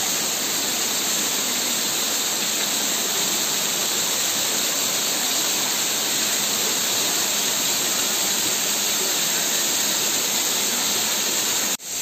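Waterfall pouring over rock into a pool: a steady rush of falling water that breaks off abruptly near the end.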